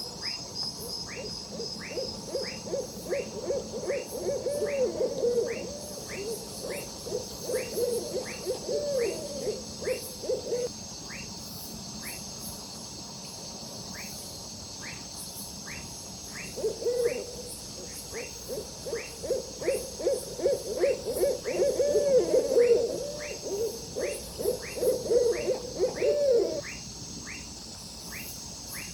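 A chorus of frogs calling. Low, fast-pulsed calls come in two long bouts, with a pause of about six seconds between them. Over these, a short chirp repeats about once or twice a second, and a steady high-pitched trill runs underneath.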